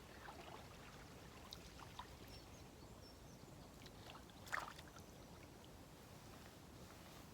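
Faint outdoor riverbank ambience: a low steady rush of wind or flowing water, with a few small ticks and one brief louder rustle about four and a half seconds in.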